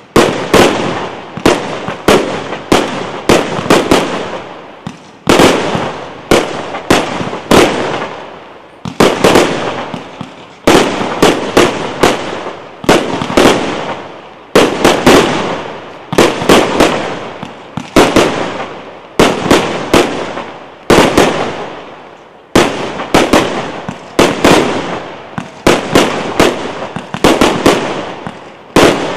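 Aerial fireworks shells bursting in quick succession, loud sharp bangs about every half second to a second, each followed by a rolling echo that fades before the next.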